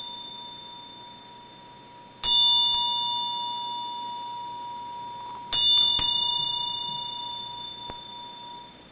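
A bell-like chime struck in two clusters, twice about two seconds in and three times in quick succession about five and a half seconds in, each strike ringing on in steady tones that slowly fade away.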